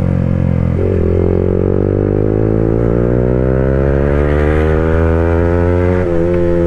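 Yamaha R15M's 155 cc single-cylinder engine running through a loud aftermarket exhaust while riding: the pitch drops about a second in, as at an upshift, then rises steadily as the bike pulls, with another small drop near the end.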